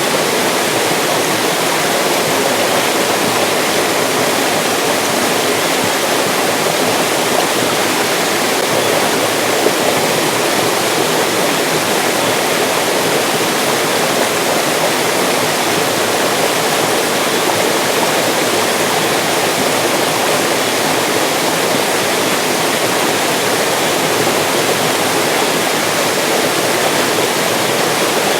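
Mountain stream rushing and splashing over rocks in a steady, unbroken flow.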